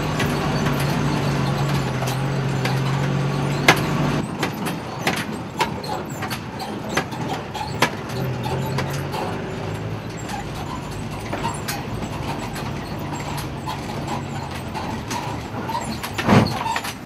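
Van engine running on the move, heard from inside the cabin, as the van drives over a rough dirt road, its body rattling and knocking over the bumps. A sharp knock about four seconds in and a heavier thump near the end.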